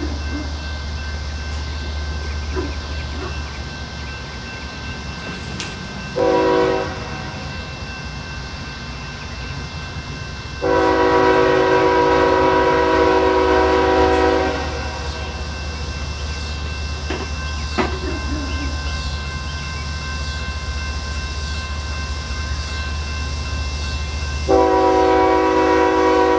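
Air horn of an approaching BNSF freight locomotive: a short blast about six seconds in, a long blast of about four seconds a little later, and another long blast starting near the end. A steady low rumble runs underneath.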